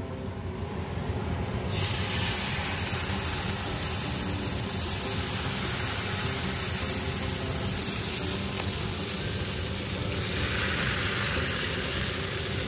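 Rice-flour and coconut-milk crepe batter sizzling in a hot oiled frying pan, starting about two seconds in as the batter is poured and then frying steadily.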